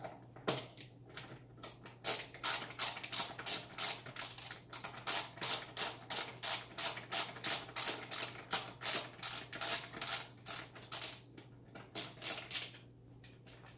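Ratcheting screwdriver with a T20 bit backing out a bolt, its ratchet clicking in a fast, even run of about four clicks a second. A few scattered clicks come before the run and a short burst near the end.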